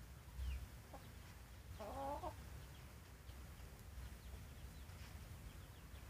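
A chicken clucks once, briefly, about two seconds in, over a low steady rumble and a few faint, short, high bird chirps.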